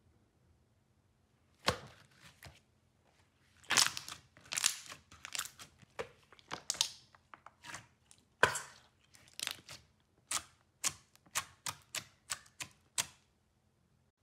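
Clear jelly slime squished and pressed by hand, giving a series of wet pops and crackles as trapped air bursts. The pops start about two seconds in and come irregularly at first, then settle into a quicker, even run of about three a second near the end.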